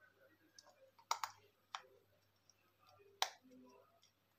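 Small screwdriver clicking against the terminal screws and plastic body of a bulb holder as a wire is fastened: a few light, sharp clicks, two close together about a second in and another a little after three seconds.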